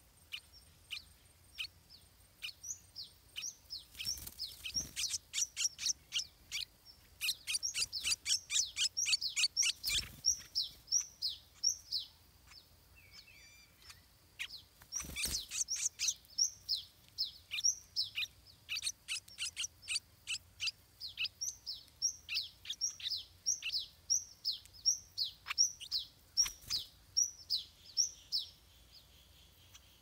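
Stripe-throated bulbul chick begging: short, high chirps repeated several times a second, in quick runs, with a few brief rustling knocks, the loudest about ten and fifteen seconds in.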